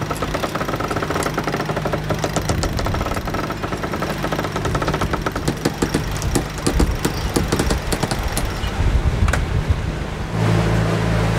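Cockpit sheet winch ratcheting as a line is winched in: a fast, even run of pawl clicks. Near the end the clicking stops and a steady low hum takes over.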